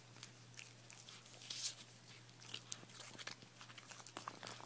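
Puppy chewing on a paper bus pass: faint, scattered crinkles and crunches, the loudest about a second and a half in.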